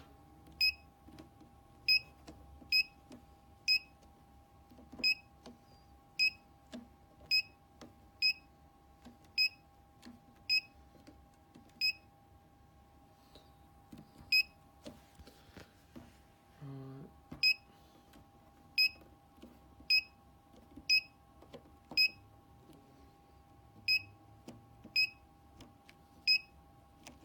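Fike fire alarm control panel's keypad beeping as its buttons are pressed one after another during a keyboard test: about twenty short, identical high beeps, mostly a second or less apart, with a pause of a few seconds in the middle.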